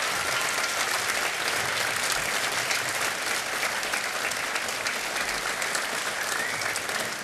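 Audience applauding steadily, with many hands clapping together.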